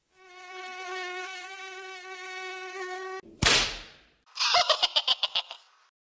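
Mosquito buzzing sound effect: a steady, slightly wavering high whine for about three seconds. It cuts off into a single loud hit, followed about a second later by a short run of rapid clicks, about eight a second.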